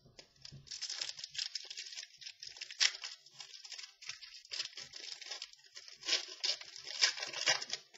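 Crinkling and rustling of trading cards and their plastic packaging being handled, a near-continuous crackle with a few sharper, louder crinkles about three seconds in and again near the end.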